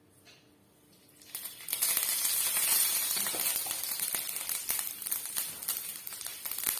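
Coconut oil sizzling and crackling with fresh curry leaves in a hot iron tawa, starting abruptly about a second in and staying loud and steady.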